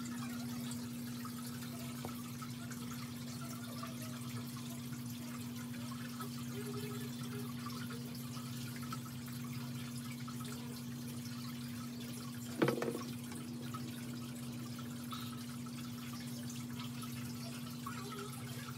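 A steady low electrical-sounding hum with a faint hiss under it, broken by a single sharp knock about two-thirds of the way through.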